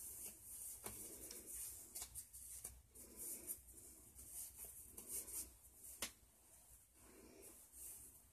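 Faint rustling and rubbing of things being handled close by, with a few soft clicks, the sharpest about six seconds in.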